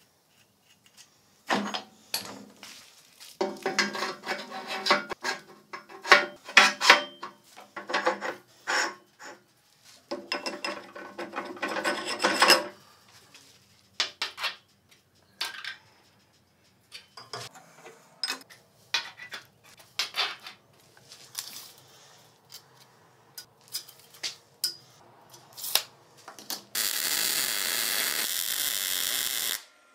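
Steel parts clanking, knocking and ringing as they are handled and worked, in irregular bursts. Near the end comes about three seconds of a steady, loud rushing noise that stops abruptly.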